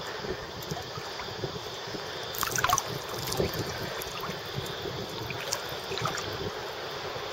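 Small sea waves lapping and sloshing against a camera held at the water's surface, with scattered little splashes and a brief cluster of them about two and a half seconds in.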